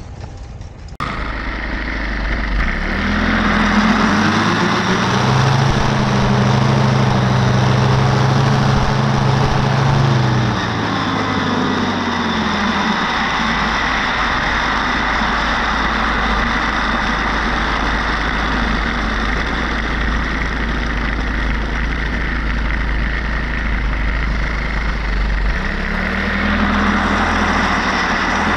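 Engine starting abruptly about a second in, with a wide hiss over it. Its pitch rises a couple of seconds later, holds, drops back to a lower, steadier running note after about eleven seconds, and rises again near the end.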